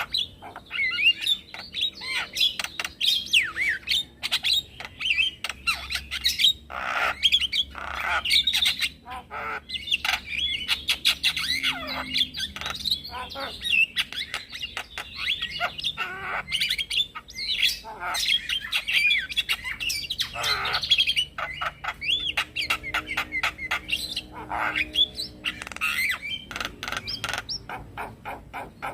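Male Javan myna (jalak kebo) singing without pause: a dense run of harsh squawks, fast clicking rattles and whistled chatter.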